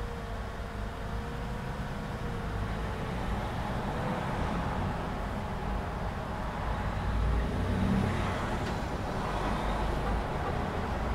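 Road traffic at a busy intersection: a steady low rumble of passing cars and trucks. A faint whining tone dips slightly and fades out within the first three seconds, and the traffic swells louder about eight seconds in.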